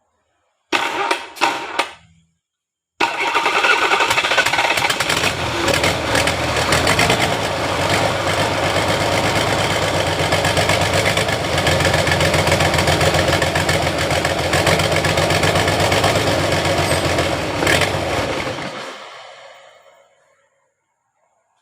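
An engine gives a short first burst that fades, then starts about three seconds in and runs steadily for about fifteen seconds before it is switched off and winds down near the end.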